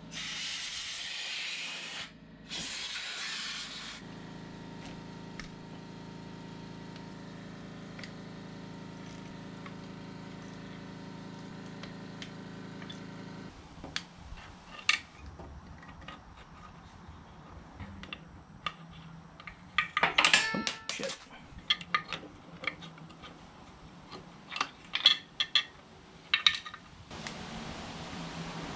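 Hand tools and small metal parts clinking and rattling against the motorcycle engine's cylinder heads, in scattered sharp clicks with a dense burst of jingling clinks about twenty seconds in. A hiss of blown air comes at the start.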